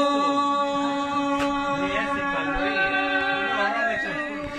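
Two women singing a warawi, the traditional Andean ceremonial song, unaccompanied, holding one long steady note that slowly gets quieter. Other voices talk faintly beneath it.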